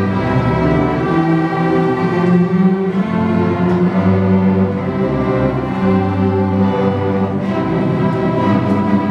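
String orchestra playing, with cellos, double bass and violins bowing sustained notes.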